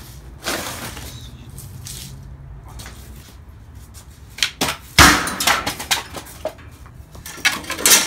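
Handling noise from a hand saw and old timber: a run of knocks and clatters with rustling between, the loudest a sharp knock about five seconds in and a cluster more near the end.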